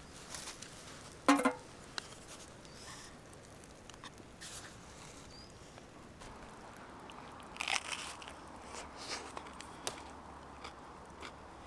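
A person biting into and chewing pizza: a loud crunch about a second in, a run of smaller crunches around eight seconds in, and scattered small clicks between.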